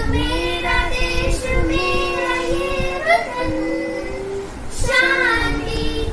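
Girls singing a song together, holding long notes that glide from one pitch to the next.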